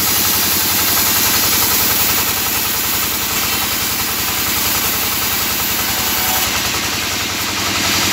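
Vertical band sawmill running steadily, with a fast, even low pulsing from its drive and a constant high hiss.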